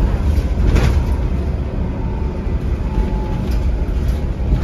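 Inside a 2008 NABI 40-SFW transit bus, its Cummins ISL diesel engine running with a steady low rumble and cabin noise. There is one brief knock a little under a second in.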